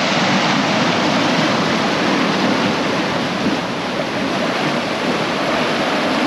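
Loud, steady rush of churning wake water and breaking waves along the hull of a Leopard 45 catamaran moving fast under sail in rough seas.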